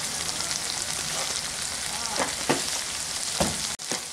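Water spinach paste sizzling steadily as it fries in mustard oil in a non-stick kadai. A few light clicks come in the second half, and the sound drops out briefly just before the end.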